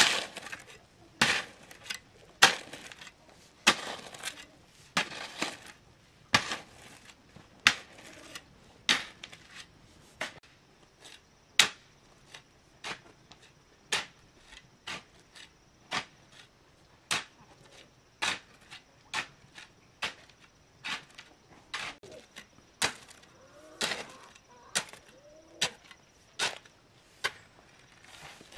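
A steel hoe scraping and chopping into a heap of sand, gravel and cement as it is mixed for concrete, with a gritty stroke about once a second.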